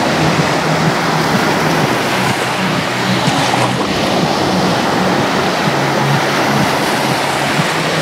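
Sea surf: small waves breaking and washing up over a shallow sandy shore, a steady rush of foaming water.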